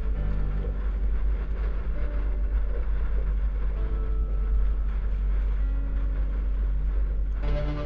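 Wind buffeting the microphone over water rushing along the hull of a sailing yacht under way, a steady low rumble. Music comes in just before the end.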